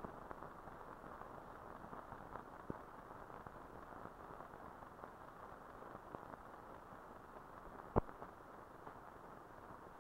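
Steady hiss from a soundless stretch of old film soundtrack, broken by a few sharp clicks and pops, the loudest about eight seconds in.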